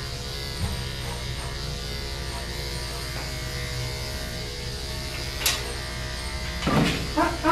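Electric dog-grooming clippers with a #7 blade buzzing steadily as they shave a thick coat. Background music plays under the buzz, and a short run of louder pitched sounds comes near the end.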